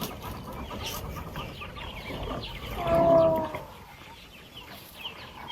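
Bird calls: many short high chirps throughout, with one louder, drawn-out call about three seconds in.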